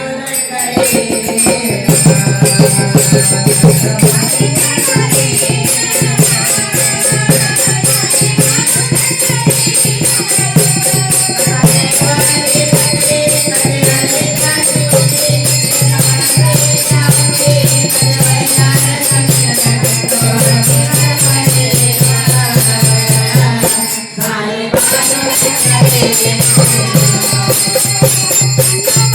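Instrumental stretch of a Marathi devotional folk song: a fast, driving percussion rhythm with rattling jingles over a steady low bass line. The music drops out for a moment near the end, then resumes.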